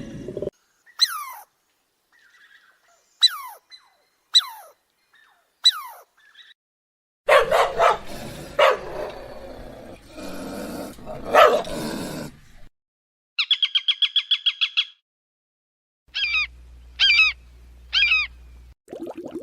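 A sequence of separate animal calls. It opens with four short, high squeals that each fall steeply in pitch. A stretch of loud, harsh, dog-like barking calls follows. Near the end come a fast trill of about a dozen pulses a second, then three short wavering calls.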